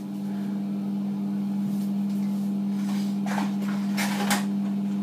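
A steady low mechanical hum, like a fan motor, throughout. Over it, a few brief rustles of a cardboard hair-dye box being handled, between about three and four and a half seconds in.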